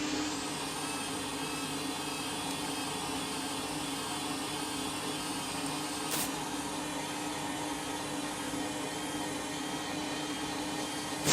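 Candy washing machine spinning a load of bed linen at a steady speed, a constant motor whine over a rushing hum, with one brief click about six seconds in. The load is balanced, so the spin runs smoothly.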